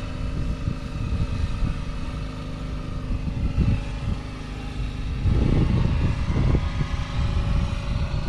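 Steady mechanical hum of a running engine, with irregular low rumbles of wind buffeting the microphone, strongest between about five and six and a half seconds in.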